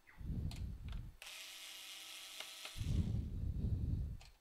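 Cordless electric screwdriver running in two bursts, about a second and a second and a half long, with a lighter whir between them, as it drives out screws from a laptop's bottom case.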